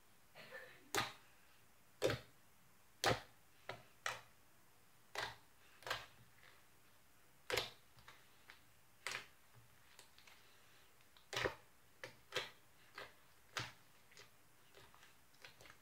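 Blue slime being kneaded and squeezed by hand, making short sharp clicks and pops as trapped air bursts, irregularly about once a second, some louder than others.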